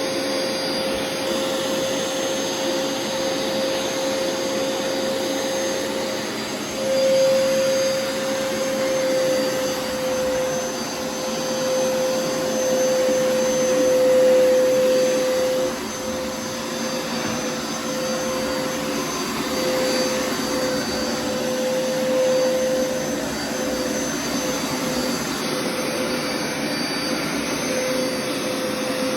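Floor-cleaning machine's vacuum motor running steadily on a carpet, with a constant hum under a rushing noise. It grows louder for a few seconds about a quarter of the way in and again near the middle.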